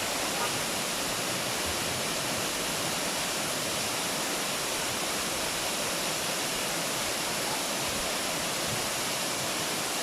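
Waterfall: a steady, unbroken rush of falling water, heavy on hiss.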